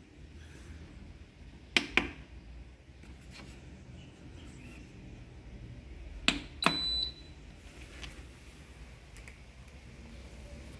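Mondial bread machine's start/stop button being pressed: two clicks about two seconds in, then two more about six seconds in, the last answered by a short high electronic beep from the machine.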